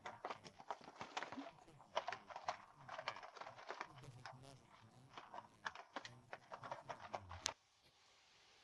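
A run of irregular knocks, clicks and clatter, cutting off suddenly about seven and a half seconds in, leaving faint hiss.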